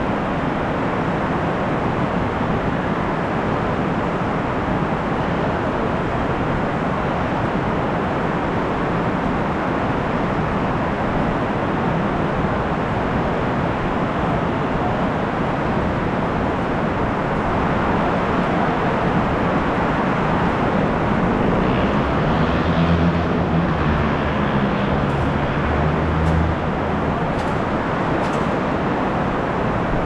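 Heavy rain falling in a steady hiss. From about 21 to 27 seconds in, the low hum of a vehicle engine rises over the rain and then fades.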